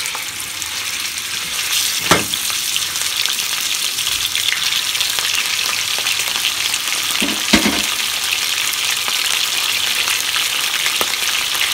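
Pork chops frying in hot oil in a small square pan: a steady, loud sizzle. Two short sharp clicks stand out, about two seconds in and again about seven and a half seconds in.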